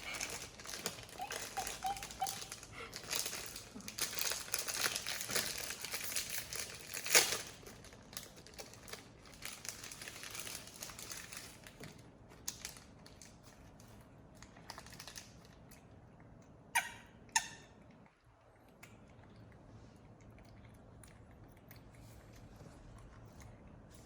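Rustling and crinkling, as of material being handled, with a sharp click about seven seconds in. Two more sharp clicks come later, then it goes quieter.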